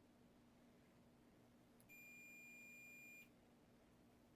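Electronic beep from the Whirlpool Cabrio dryer's control board: one steady high-pitched tone lasting about a second and a half, starting about two seconds in, just after a faint click. A faint steady hum lies underneath.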